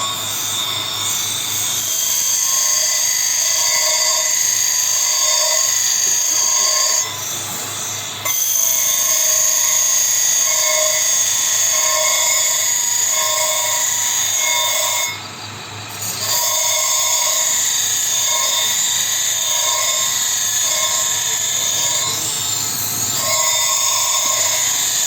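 An electric power tool running with a steady high whine and a slow, regular throb about once a second. It eases off briefly twice, about a third and about two-thirds of the way through, then picks up again.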